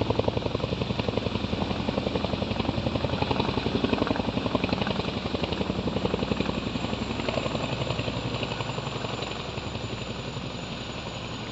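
Army helicopter's rotor beating in a rapid, steady pulse, slowly growing quieter over the last few seconds.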